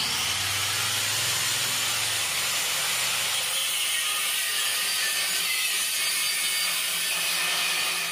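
Angle grinder cutting along the edge of a steel axe-head blank: a steady, loud, high hiss of the disc in the metal, which starts suddenly and runs without a break.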